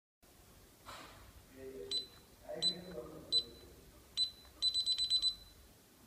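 DSC wireless alarm keypad beeping: four single short beeps as the code keys are pressed, then a quick run of about seven beeps as the system arms and starts its exit delay.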